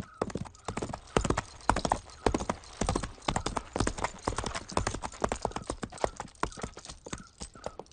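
A horse walking on hard ground, its hooves clip-clopping in a quick, irregular run of sharp knocks.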